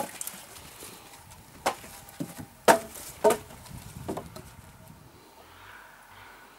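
Thin logs and poles thrown off a trailer onto a woodpile, clattering as wood knocks against wood: about five sharp knocks over a few seconds, the loudest near the middle.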